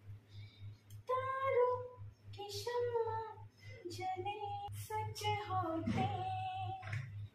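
A woman's voice singing a Hindi song melody in sustained, gliding phrases, with a steady low hum beneath.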